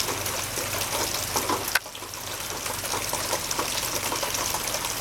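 Steady rain falling, an even hiss of water. A sharp click comes a little under two seconds in, after which the rain is briefly quieter.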